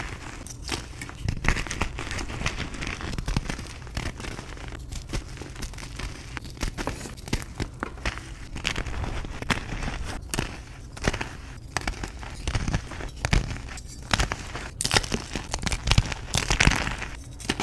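Reformed gym chalk being crumbled and crushed by hand: a dense, irregular run of dry crunches and crackles.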